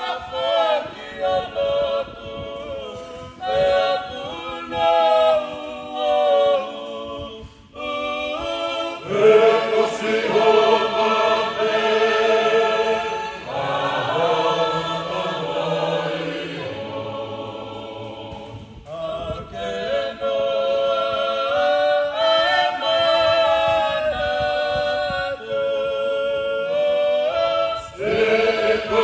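Tongan church choir singing a hymn a cappella in parts. It starts in short phrases with brief gaps, then about nine seconds in the full choir comes in louder, with low voices beneath.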